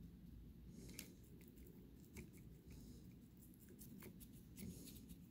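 Faint, scattered small ticks and rustles of a paintbrush dabbing paint onto a clay figure and fingers shifting it on crinkly aluminium foil, over a low steady room hum.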